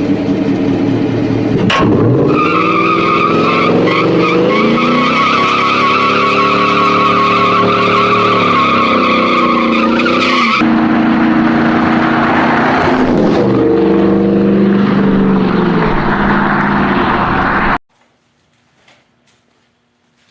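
A car engine revving hard with tires squealing, as in a burnout. The sound changes abruptly about ten seconds in, as at an edit, and cuts off sharply a couple of seconds before the end.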